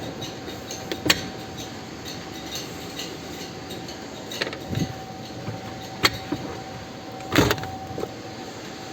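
A minivan's folding rear seats and cargo-area fittings being handled: a series of scattered clicks and knocks, the loudest and longest about seven seconds in. Under them runs a faint steady high hum.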